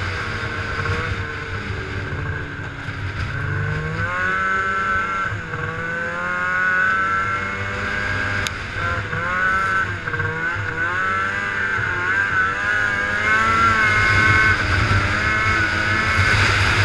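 Snowmobile engine running under way along a trail, its pitch repeatedly rising and falling as the throttle is worked.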